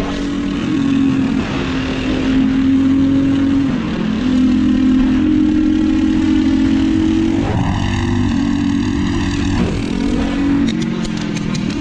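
Small single-cylinder engine running hard at steady high revs, its pitch dipping briefly twice. About two-thirds of the way through, a steady higher-pitched tone sounds over it for about two seconds.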